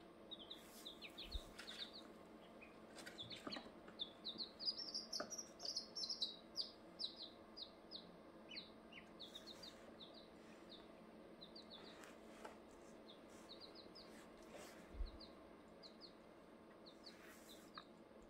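A brood of four-day-old ducklings and chicks peeping: short, high peeps in quick runs, busiest a few seconds in, then more scattered. There is a soft low thump near the end.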